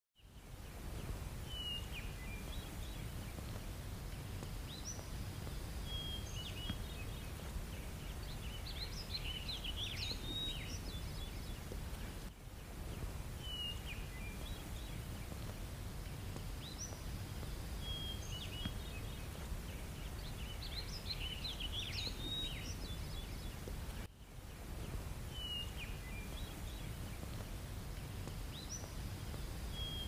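Outdoor ambience of small birds chirping and trilling over a steady low rumble, the same stretch of a dozen seconds repeating as a loop.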